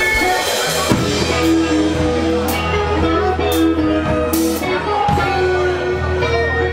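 Live band playing, with electric and acoustic guitars to the fore over a steady low bass.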